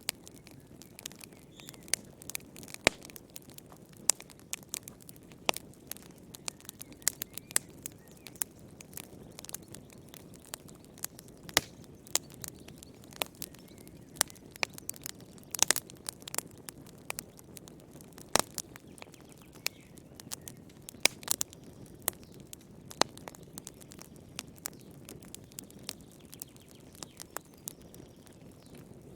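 Wood fire crackling in a fireplace: frequent sharp, irregular pops and snaps over a soft steady hiss of burning.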